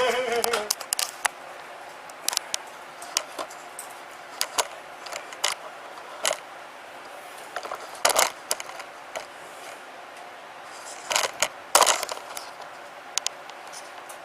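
Scattered clicks, taps and clinks of objects being handled during work on the vehicle, with louder bursts of clatter about 8 seconds in and again around 11 to 12 seconds in.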